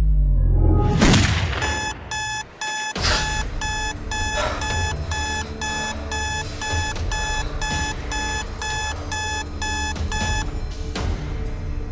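Alarm clock beeping in a steady repeating pattern, about two beeps a second, then stopping near the end. Low dramatic music runs underneath, and a rising whoosh comes just before the beeping starts.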